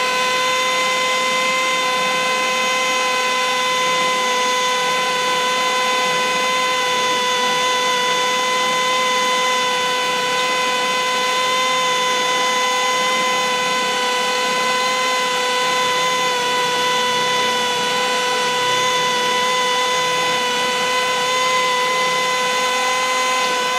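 Cordless drill running steadily at full speed, a constant motor whine, while its spot-weld bit cuts out a factory spot weld in the car's inner-fender sheet metal.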